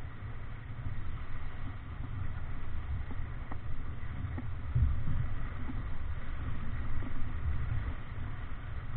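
Wind buffeting the microphone in a low rumble over the rush and hiss of breaking water along the hull of a Davidson 36 sailing yacht heeled over and driving through rough chop, with louder surges of wind and water about five and seven seconds in.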